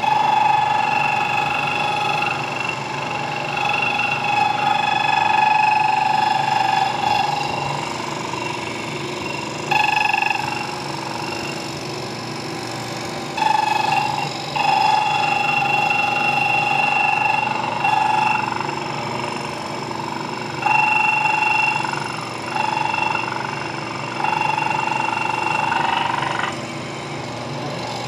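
Slitting saw on a milling machine cutting a slot into the end of a metal shaft: a steady, high-pitched ringing whine that grows louder and eases off in stretches of a few seconds as the cut is fed in. It drops away about two seconds before the end.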